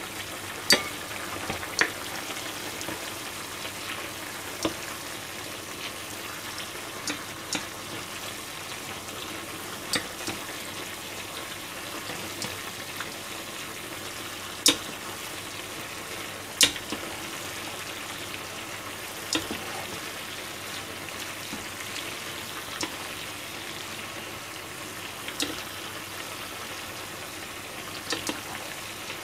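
Beef-and-vegetable nishime sizzling and bubbling in a frying pan as its liquid is boiled down. A metal ladle stirs it and clinks sharply against the pan now and then, about nine times.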